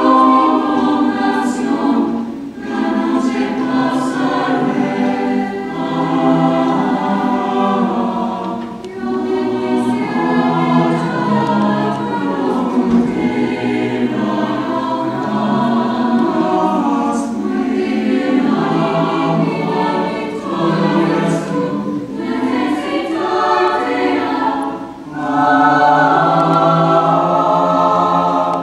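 Mixed high-school choir singing in harmony, in phrases that swell and ease, ending on a loud held chord near the end.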